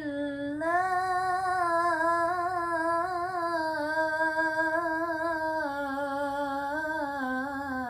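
A child's voice reciting the Quran in melodic tilawah style, drawing out one long, ornamented, wavering note with barely a pause.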